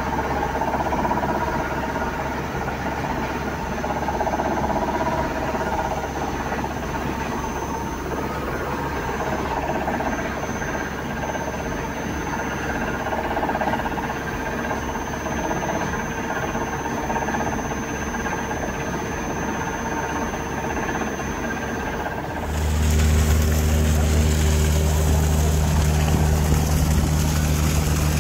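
Steady low mechanical hum. About 22 seconds in it changes abruptly to a louder, deeper hum with a hiss over it.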